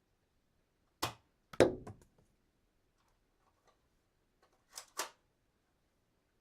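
Dart gun cocking and shooting: a sharp click about a second in, then a louder snap with a short rattle, and a quick double click near the end.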